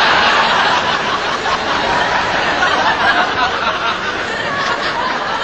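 A crowd laughing steadily.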